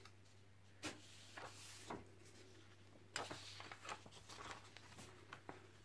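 Faint rustling and crackling of an animation cel and its paper backing being lifted and handled, with a few light clicks, the sharpest about a second in and again about three seconds in.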